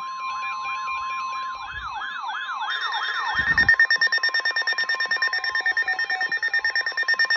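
Layered electronic alarm sounds of an emergency alert: a siren wailing rapidly up and down over a steady single-pitch alert tone, the wail stopping about three and a half seconds in. A fast pulsing alarm with high steady tones then carries on to the end.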